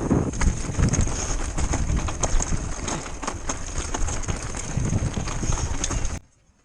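RST Killah mountain-bike suspension fork working, giving a rapid, irregular run of knocks and rattles over a low rumble that cuts off abruptly about six seconds in.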